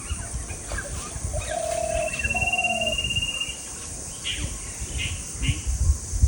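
Birds calling: two short, low trills about one and a half seconds in, with a long, high, even trill over them, then three brief high calls in the last two seconds.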